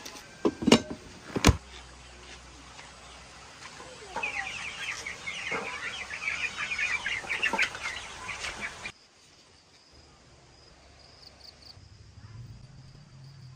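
Two sharp knocks in the first two seconds, then from about four seconds chickens calling in a dense run of short high cheeps and clucks that cuts off suddenly near nine seconds. After the cut a faint steady insect trill remains.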